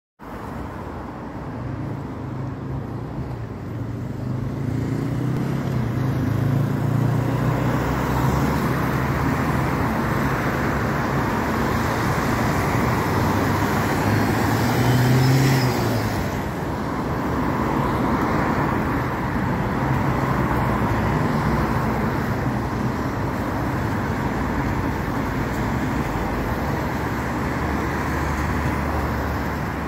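Road traffic passing on a wet road: a steady run of car and van engines with tyre noise, swelling to its loudest about halfway through as a vehicle passes close.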